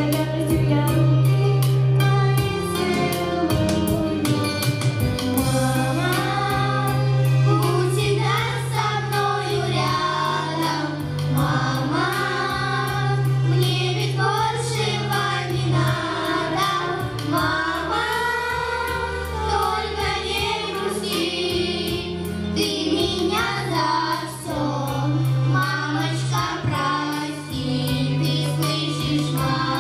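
Group of children singing a song together into microphones, amplified through the hall's sound system, over a recorded instrumental accompaniment with a steady bass line.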